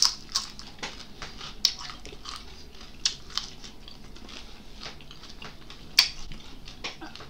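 People chewing and biting fried dried fish close to the microphone: irregular crunches and mouth clicks, the sharpest about a second and a half in and about six seconds in.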